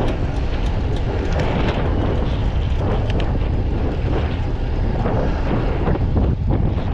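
Wind buffeting the camera's microphone during a bicycle ride, a loud steady rumble.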